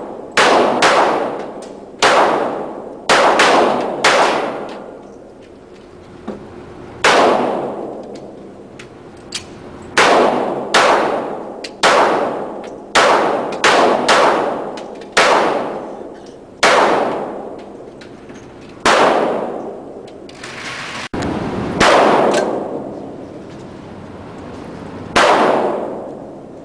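Repeated gunshots at a shooting range, about twenty shots at irregular intervals, some in quick pairs, each followed by a long echoing decay.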